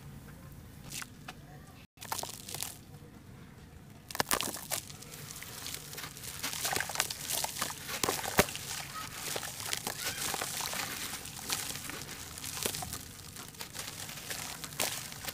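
A dry, molded chunk of charcoal ash being crushed and crumbled by hand, giving dense gritty crunching and crackling as crumbs fall into a tub of water. The crunching starts in earnest about four seconds in and keeps going, irregular, to the end.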